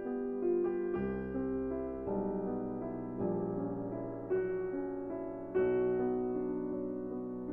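Slow, gentle lo-fi piano music: soft notes and chords struck about once a second, each ringing on and fading.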